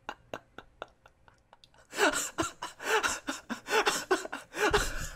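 People laughing hard. First come quick breathy pulses of laughter, about five a second, then from about two seconds in louder, high-pitched, wavering laughter.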